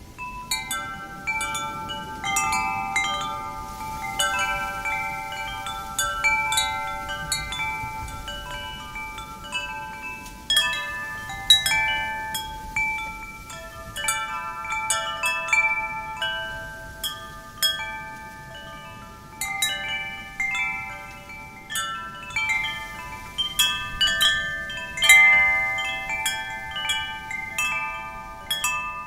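Metal wind chimes ringing continuously, their tubes struck at random in clusters of several notes that overlap and fade, with a faint wind rushing underneath.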